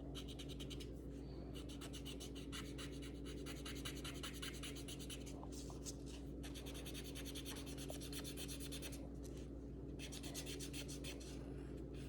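Colouring on paper: quick back-and-forth scribbling strokes in runs, broken now and then by short pauses.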